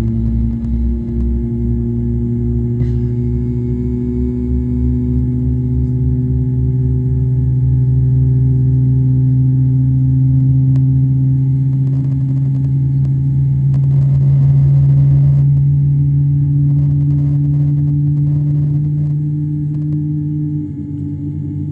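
Cabin noise inside a Boeing 787-8 taxiing on the ground: a steady hum made of several tones that slowly rise in pitch. A low, rapid pulsing fades out over the first several seconds, and a stretch of hiss comes about two-thirds of the way in.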